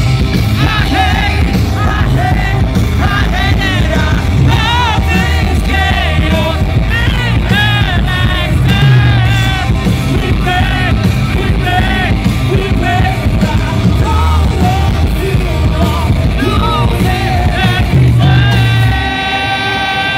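Live rock band playing loud, with sung and yelled vocals over electric guitars, bass and drums, heard from the audience in a hall. Near the end the playing drops back to a steady held chord.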